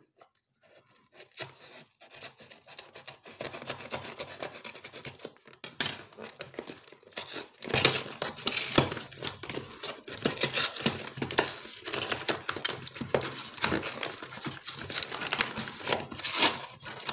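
Cardboard shipping box being cut with a kitchen knife and then torn open by hand: a long run of scraping, ripping and crinkling cardboard with sharp cracks, louder from about six seconds in.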